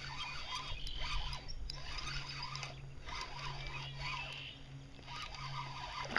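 Fishing reel being cranked to retrieve a topwater mouse lure, its gears whirring steadily in spurts of about a second with short pauses between.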